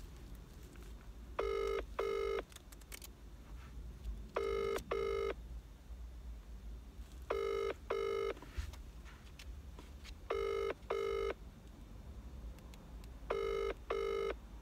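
Ringback tone of an outgoing phone call playing through a smartphone's loudspeaker: the British double ring, five ring-ring pairs about three seconds apart, while the line waits to be answered.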